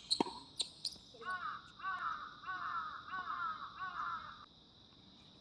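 A tennis ball struck by a racket with one sharp knock at the start, then a crow cawing in a quick run of about six or seven caws lasting about three seconds.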